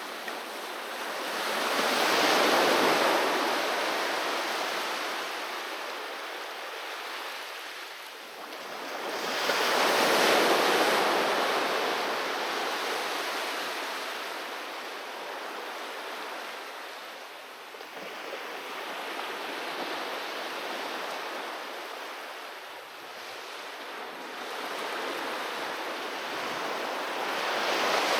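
Sea waves breaking and washing on the shore in slow surges, the loudest about two seconds in and again about ten seconds in, with smaller ones later and another building near the end.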